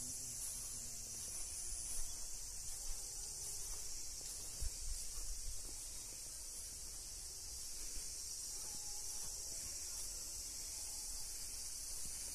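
A steady, high-pitched chorus of insects singing. Under it runs a low rumble with a few soft bumps.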